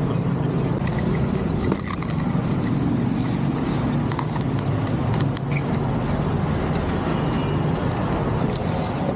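Steady low hum of street traffic and engines, with scattered light clicks and taps over it.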